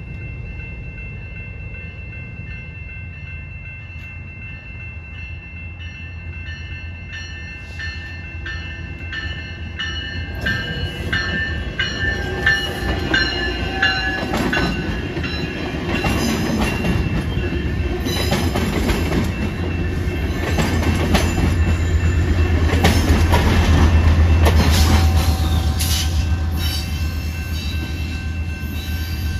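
Metrolink push-pull commuter train passing a grade crossing, cab car leading and the diesel locomotive pushing at the rear: the rumble and wheel clacks build from about a third of the way in and are loudest about three-quarters through, as the locomotive goes by. Crossing bells ring steadily throughout.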